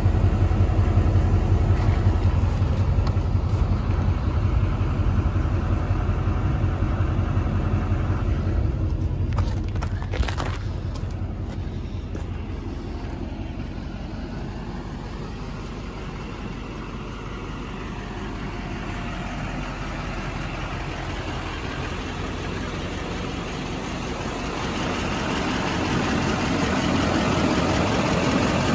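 2007 GMC truck engine idling steadily with a low rumble, loud at first, fading about ten seconds in and growing louder again near the end.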